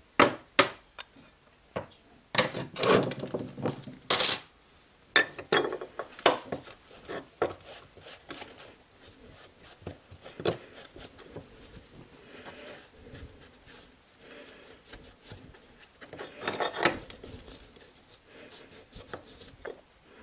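Workshop handling noise: an aluminium oil pump housing and metal parts clink and knock on a steel workbench, with a few stretches of rubbing as the housing is wiped with a rag.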